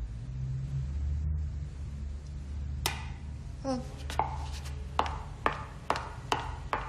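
High-heeled shoes clicking on a hard floor in walking steps, about two a second, starting around three seconds in, over a low steady hum.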